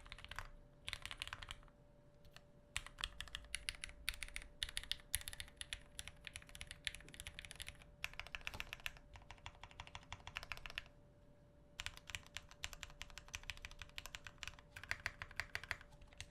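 Typing test on a TX-65 65% custom mechanical keyboard with a brass plate, foam sound dampening, lubed switches and GMK keycaps. The keys make quiet, rounded clacks with no case ring or stabiliser rattle, like wet gravel or heavy plastic dice knocking together. The keystrokes come in fast runs broken by short pauses.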